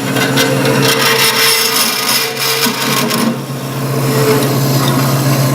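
Acra KB-36 14-inch vertical bandsaw cutting through thin tube: the blade's cutting noise over the steady hum of the running saw. The cutting stops about three seconds in and the saw runs on free.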